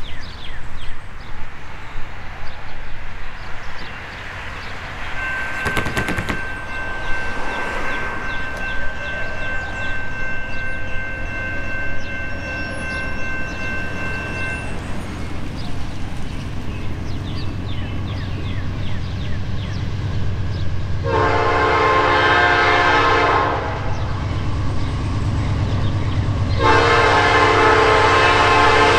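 Nathan P5 five-chime horn on a Norfolk Southern GE AC44C6M diesel locomotive sounding two long blasts about five seconds apart in the last third, over the low rumble of the approaching train, which grows steadily louder.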